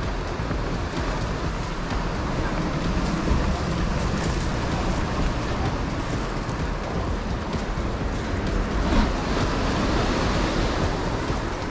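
Steady rushing noise of sea surf on the rocky shore, with a deep rumble underneath.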